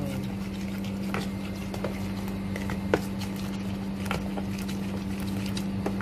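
Metal spoon stirring a wet batter in a bowl: a sloshing liquid sound with a few sharp clicks of the spoon against the bowl, the loudest about three seconds in. A steady low hum runs underneath.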